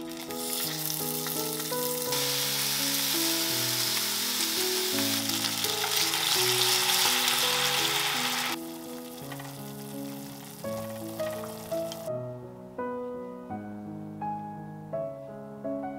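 Chicken wings sizzling as they fry in a pan, louder from about two seconds in and cutting off abruptly a little past halfway. After that come a few light clicks of food-storage container lids being handled, with background music throughout.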